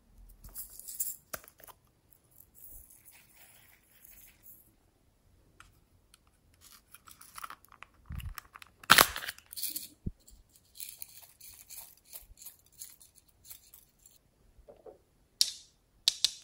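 Small plastic toys handled close to the microphone: rubbing, scraping and clicking, with a sharper knock about nine seconds in and a few more quick clicks near the end.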